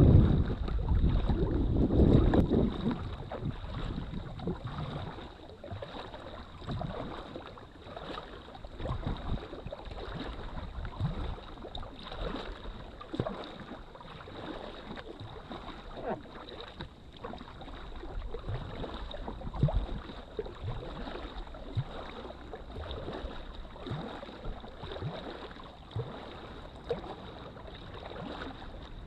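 Water splashing and lapping around an inflatable drop-stitch kayak as it is paddled, in short irregular splashes about every second. Wind rumbles on the microphone for the first few seconds, then dies down.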